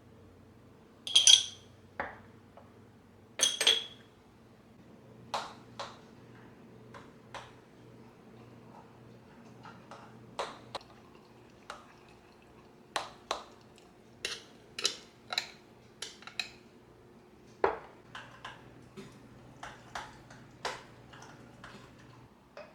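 Kitchenware being handled and set down: a string of separate clinks and knocks, the two loudest near the start ringing briefly like glass or china.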